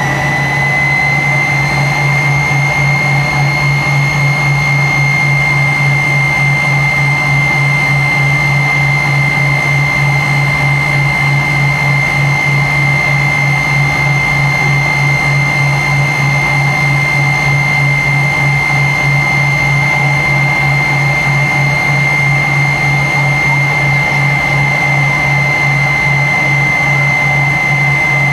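Tupolev Tu-134's rear-mounted Soloviev D-30 turbofans heard from inside the cabin: a steady high whine over a low hum. The whine climbs a little in pitch over the first couple of seconds, then holds steady.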